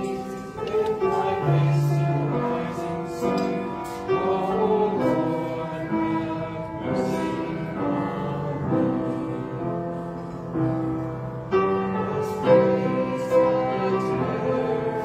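A hymn sung by voices with accompaniment, moving through long held notes.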